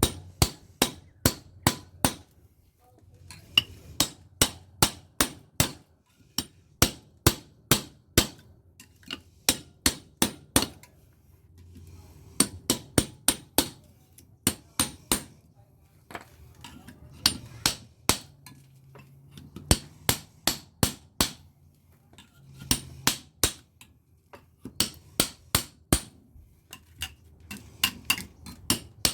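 Repeated hammer blows on a small air-conditioner transformer, knocking it apart to free the copper windings from the steel core. The sharp metallic strikes come in runs of about four to eight, roughly three or four a second, with short pauses between runs.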